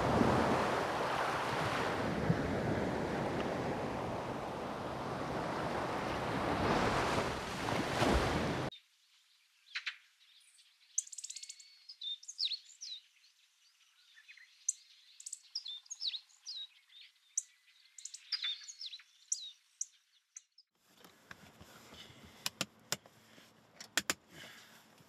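Surf washing onto a sandy beach, a steady rush of waves that cuts off abruptly after about nine seconds. Then small birds chirping in short, high calls. Near the end, sharp clicks and knocks of equipment cases being handled in a car's back seat.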